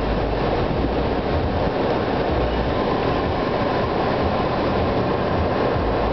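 Steady rushing and rumbling noise inside the cabin of a 2004 Toyota Highlander with its engine idling.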